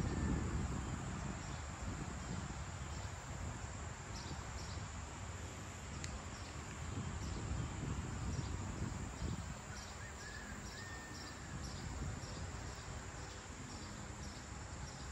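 Insects chirping in short, evenly repeated pulses about twice a second over a steady high-pitched insect drone, under a low steady rumble of outdoor background noise.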